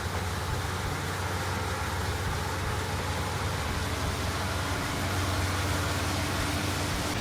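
A farm machine's engine running steadily: a constant low hum under a broad, even hiss.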